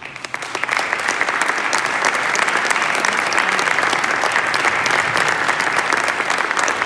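Audience applauding: dense clapping that breaks out at once and swells over the first second, then holds steady.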